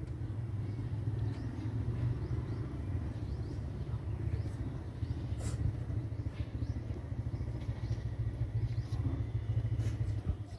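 A loud, low, fluttering rumble that cuts off suddenly at the very end.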